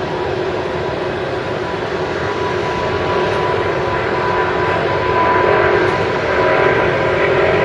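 Boeing 777 jet engines at takeoff power, a loud steady rushing noise with a whine, growing gradually louder as the airliner rolls down the runway toward the listener.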